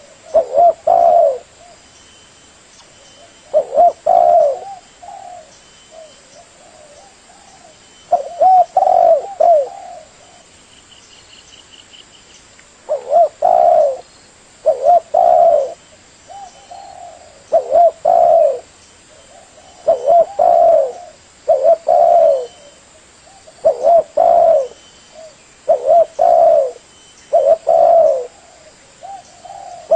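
Spotted dove cooing: about a dozen short phrases of a few low coos each. The phrases come after pauses of several seconds in the first half, then about every two seconds. Faint high chirps sound in the background.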